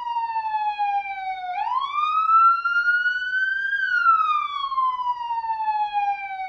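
US police car siren in its wail mode: a single tone sweeping slowly up and down. It falls to its lowest about a second and a half in, climbs for about two seconds, falls again, and turns back upward near the end.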